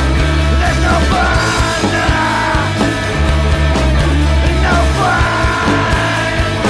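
Garage punk band playing loud rock with heavy bass, and a man singing lead vocals in two long phrases.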